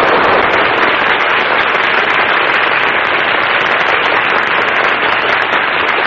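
Audience applauding steadily, dull and narrow-sounding as on an old radio broadcast recording.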